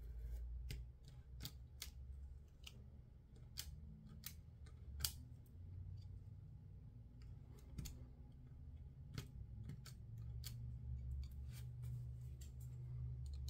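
Snap-off craft knife blade cutting through paper on a cutting mat: irregular sharp clicks and ticks as the blade cuts and lifts out small pieces, the loudest about five seconds in, over the low rub of hands on the sheet.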